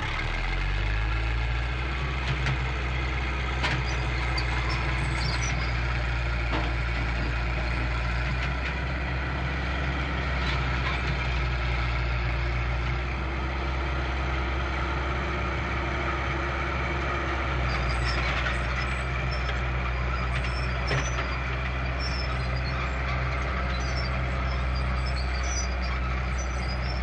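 A steady low mechanical drone with a few faint clicks.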